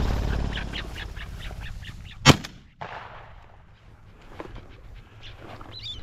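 A game bird flushing from dry grass with a burst of wing noise and a quick string of calls, then a single loud gunshot about two seconds in, fired over the young pointer as its introduction to the gun. Short bird chirps near the end.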